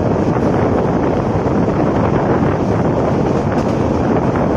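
Steady wind noise buffeting the microphone from a moving passenger train, over the running rumble of the coaches on the track.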